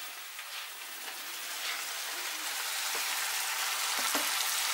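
Minced beef, onions and green peppers sizzling in oil in a frying pan, the sizzle growing steadily louder. Near the end, chopped tomatoes and garlic are slid from a wooden board into the pan, with a couple of light knocks.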